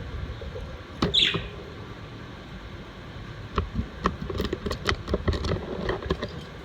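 Pet budgerigars: one short falling chirp about a second in, then a quick irregular run of sharp clicks and taps for a few seconds, over a steady low rumble of room noise.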